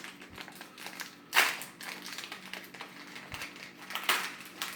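Foil Pokémon booster pack crinkling and crackling as it is torn open and the cards are handled, with a loud crackle about a second and a half in and another near the end.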